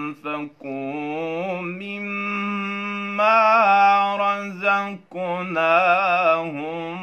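A young man reciting the Quran in the melodic tajwid style, one voice drawing out long, ornamented notes that bend and waver. There are short breaks for breath about half a second in and about five seconds in, and the pitch climbs and is loudest about three to four seconds in.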